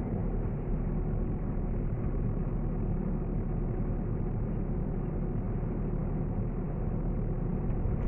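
JCB 3DX backhoe loader's diesel engine idling steadily.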